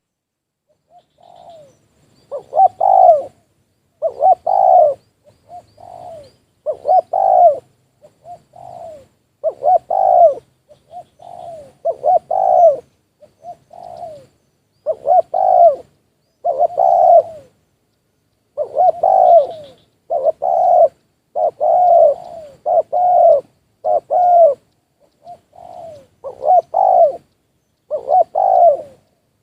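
Spotted doves cooing: a long run of loud coos, roughly one or two a second, with quieter coos mixed in between the loud ones.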